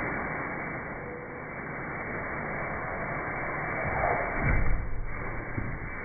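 Handling noise from unpacking a tumble dryer: a steady rustling hiss, with a couple of heavy low thumps about four and a half seconds in.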